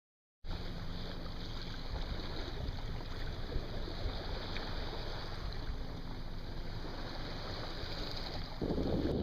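Steady sound of a boat on the water, starting abruptly about half a second in: a low engine hum under wind and water noise, with wind buffeting the microphone harder near the end.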